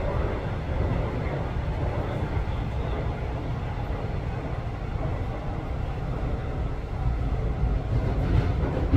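Subway train running on an above-ground section, heard from inside the carriage: a steady low rumble of wheels on the rails.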